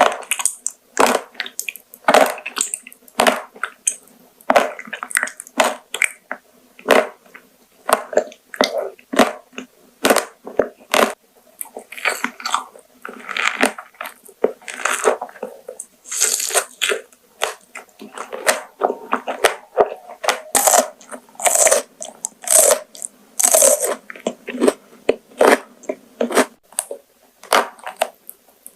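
Close-miked ASMR eating: a person biting and chewing crunchy food, with irregular sharp crunches and crackles, several a second in bursts.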